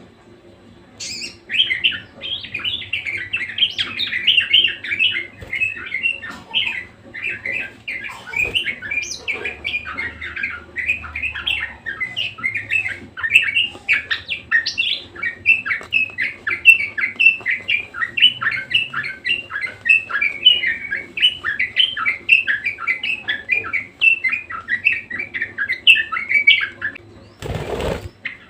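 Budgerigar warbling: a fast, continuous chatter of high chirps and squeaks that starts about a second in and runs until shortly before the end. It is followed by a brief burst of rushing noise.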